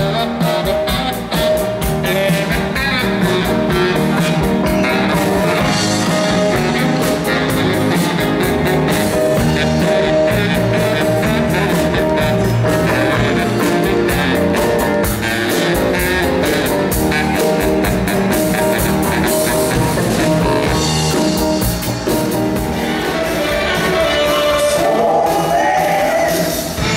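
Live rock and roll band playing an oldies song: lead vocals over baritone saxophone, electric bass and a drum kit.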